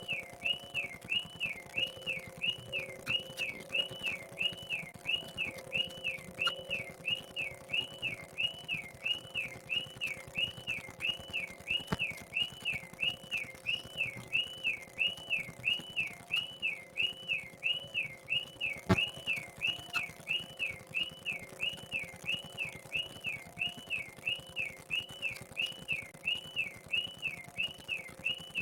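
A high whistle-like tone warbling evenly up and down, about one and a half times a second, without a break, over a faint steady low hum, with one sharp click near two-thirds of the way through.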